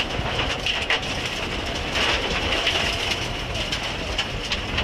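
Mitsubishi Lancer Evo IX rally car at speed on a gravel stage, heard from inside the cabin: the engine runs under a steady roar of tyre and road noise, with constant sharp clicks and rattles of loose stones and the bodywork.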